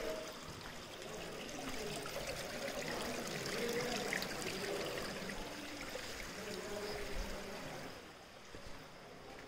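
Shallow stream of water trickling over rocks and gravel, a steady rushing that grows fainter near the end.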